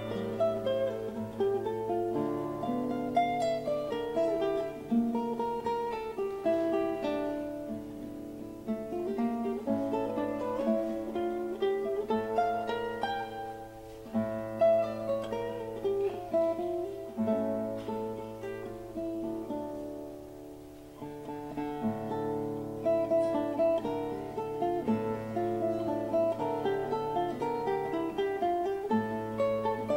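Solo classical nylon-string guitar, fingerpicked: a slow melody of plucked notes over repeated, long-ringing low bass notes. The playing thins out and quietens about two-thirds of the way through, then builds again.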